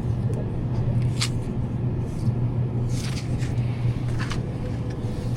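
Steady low rumble of a car's engine and tyres heard from inside the moving vehicle, with a few short ticks.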